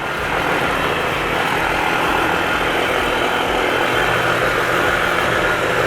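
ATV engine running steadily under an even rush of noise, with no change in pace.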